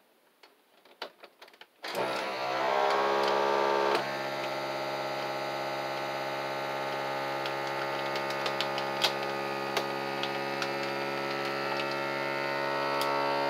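FoodSaver vacuum sealer's pump starting about two seconds in and running with a steady hum as it draws the air out of a bag of Brussels sprouts, slightly louder for its first couple of seconds. The machine sits on a metal cookie sheet and vibrates against it.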